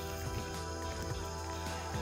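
Background music with steady held tones.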